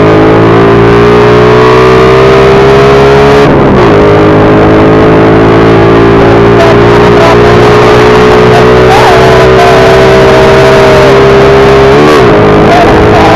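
Motorcycle engine running loud and steady. Its pitch dips sharply and climbs back twice, about three and a half seconds in and near the end.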